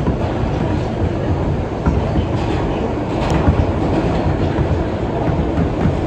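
R160B subway car running along the track, heard from inside the car: a steady low rumble of wheels on rail with scattered clicks over the rail joints, one sharp click a little over three seconds in.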